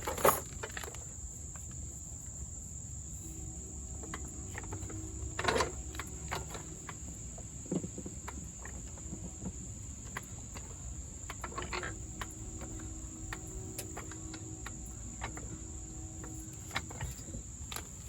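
Steady high-pitched trill of crickets. A sharp knock comes right at the start, and a few softer knocks and clicks are scattered through.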